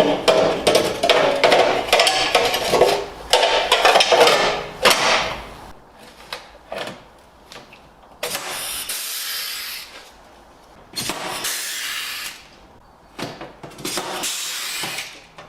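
Workshop tool work: a few seconds of clattering and knocking of tools and parts, then three bursts of a power tool, each about one and a half to two seconds long.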